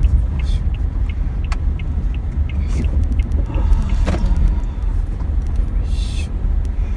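Low, steady road and engine rumble inside a moving Toyota HiAce van's cabin, with a light regular ticking about three times a second.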